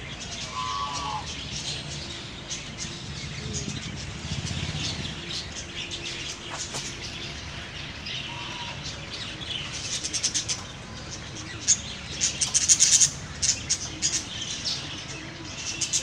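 Budgerigars chirping and chattering, with a denser run of sharp, loud chirps in the second half.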